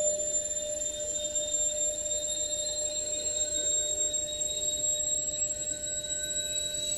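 Hotpoint Ariston Aqualtis washing machine on its wool programme with the drum at rest, its drain pump running as a steady hum under a constant high whine: the machine draining before the 600 rpm spin.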